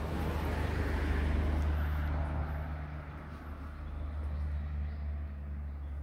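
A car passing on the road, its noise swelling over the first couple of seconds and fading away, over a steady low rumble.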